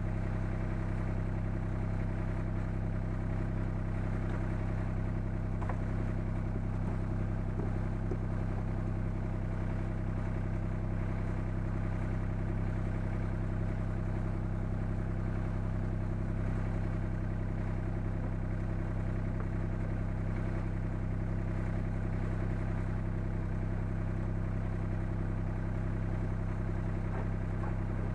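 Takeuchi TB125 mini excavator's diesel engine running at a steady, unchanging speed.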